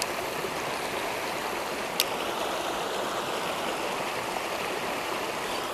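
Spillway water rushing and splashing steadily over rocks, with a single sharp click about two seconds in.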